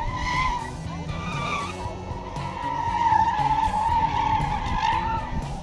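A car's tyres squealing through tight autocross turns, the squeal wavering in pitch and swelling and fading, over the car's engine running hard.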